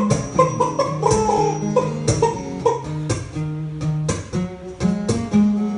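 Acoustic guitar playing a rhythmic accompaniment: a sharp strum about once a second over low bass notes, with shorter melody notes between.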